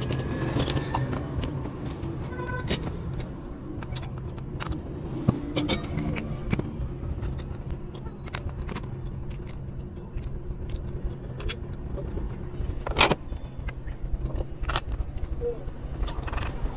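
Metal parts of a car starter motor clicking and clinking as they are handled and fitted together by hand, with scattered light knocks and a sharper one about 13 seconds in. A steady low hum runs underneath.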